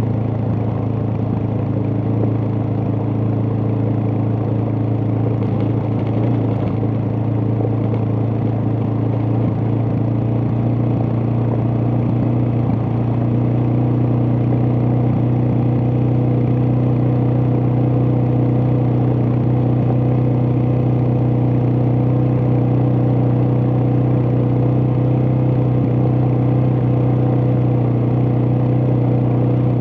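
Suzuki DR650's single-cylinder engine running steadily, a constant low drone whose pitch barely changes.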